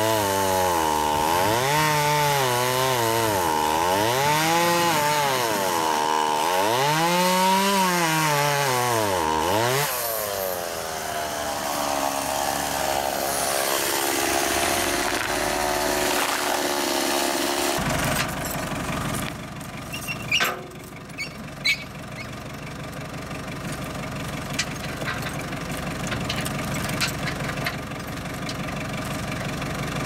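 A chainsaw cutting through a thick tree limb, its pitch dipping and climbing again and again as it bogs under load and revs back up, then running steadier. About two-thirds of the way in the sound changes to a loader tractor's engine running, with a few sharp knocks.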